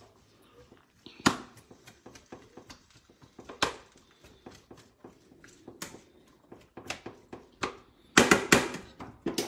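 Irregular light clicks and knocks of kitchen handling, a second or two apart, with a quick cluster of louder knocks near the end.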